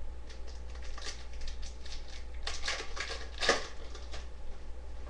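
Hockey trading cards being flipped through and shuffled by hand: a run of short, dry flicks and rustles, busiest between about two and a half and three and a half seconds in, with the loudest flick near three and a half seconds. A low steady hum runs underneath.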